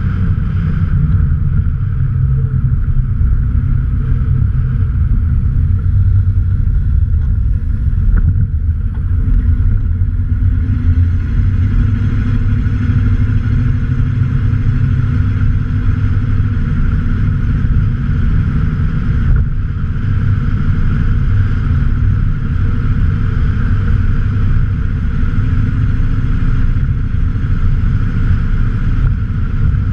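Exhaust of a 1995 Ford F-150's 5.0 L (302) V8 while the truck drives at a steady speed: an even low engine drone with no big revs.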